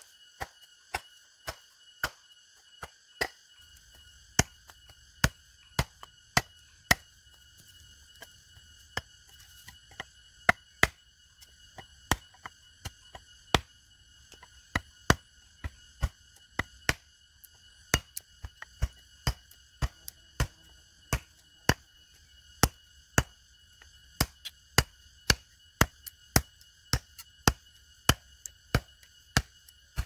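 Firewood being chopped into short lengths with a blade: sharp, irregular chopping strokes, about one and a half a second, kept up throughout.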